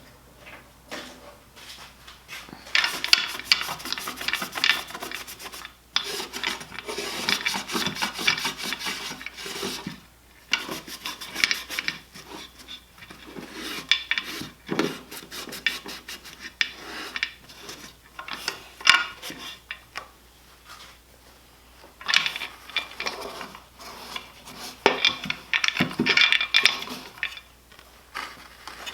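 Bouts of brisk rubbing and scrubbing on the old boat motor's metal parts, made of rapid scratchy strokes with short pauses between bouts.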